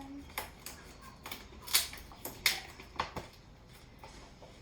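Duct tape being pulled and wrapped around two plastic pop bottles: a scatter of short, sharp clicks and crackles, with the loudest ones about two and two and a half seconds in.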